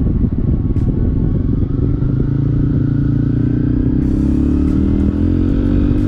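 Motorcycle engine running under load with a rough, clattery rumble, then accelerating, its note rising steadily over the last few seconds.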